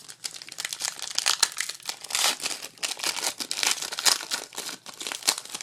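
Foil wrapper of a trading-card pack being torn open and crinkled by hand: a run of quick, dense crackles and rustles.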